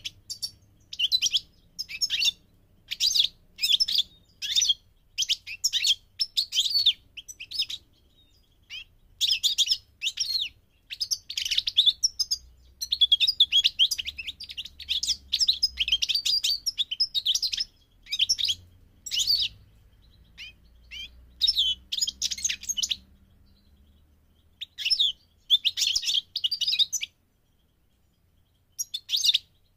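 European goldfinch singing: runs of rapid, high-pitched notes in short phrases broken by brief pauses, with a longer pause near the end before it starts again.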